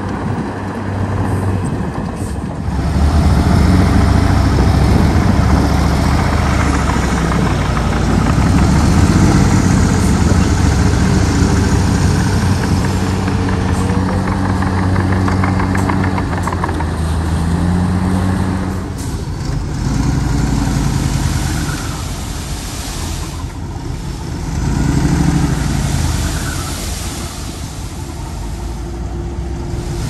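Heavy diesel engine of an earthmoving machine working. It revs up about three seconds in and runs hard, eases off around twenty seconds in, then surges briefly once more.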